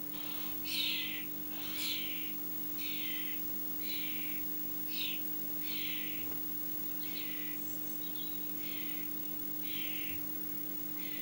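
Hawk nest with downy chicks heard over a nest-camera feed through a TV speaker: a harsh call repeated about once a second, over a steady electrical hum.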